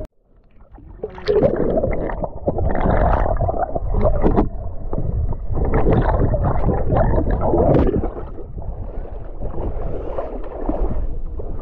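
Water rushing and splashing around a boat moving through the sea, with a low rumble of wind on the microphone, coming in uneven surges. It rises out of near silence about a second in.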